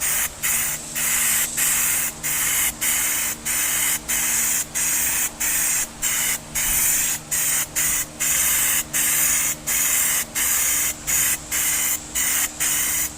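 Paint spraying a base coat onto a repaired truck dash pad, hissing in short bursts about twice a second, with a faint steady hum underneath.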